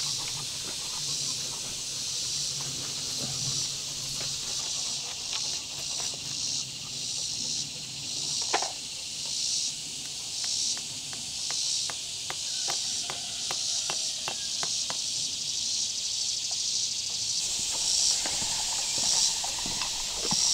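Outdoor insect chorus buzzing steadily in high, pulsing waves, with a small hammer tapping in the middle: one sharper strike, then a run of light taps about two a second for several seconds.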